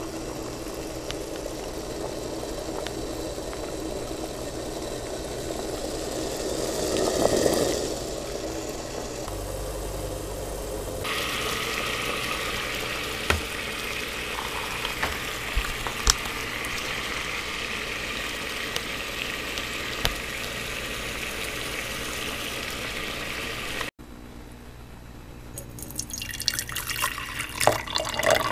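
Sodium acetate solution made from vinegar and baking soda boiling in a stainless steel pot, a steady bubbling hiss as it is boiled down to concentrate it. Near the end, liquid drips with light clinks in a glass jar.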